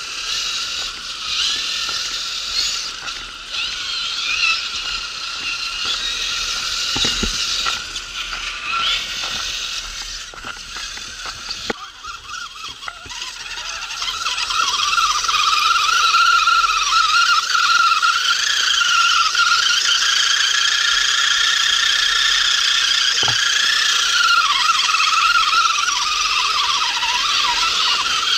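RC car's electric motor and gear drive whining, the pitch rising and falling with the throttle. It is patchy at first and turns louder and steadier from about halfway through.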